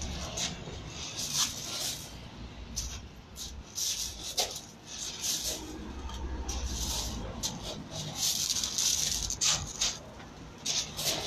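Feet shuffling and scuffing on loose gravel in irregular crunchy bursts as two people spar, over a low rumble.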